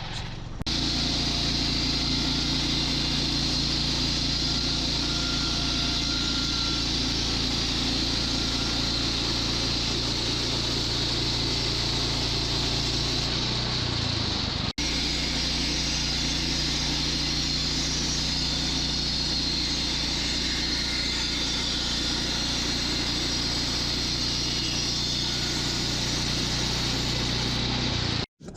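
A Woodland Mills HM122 bandsaw mill's engine runs steadily as its band blade saws through a log. A momentary break comes about halfway through, and the sound cuts off just before the end.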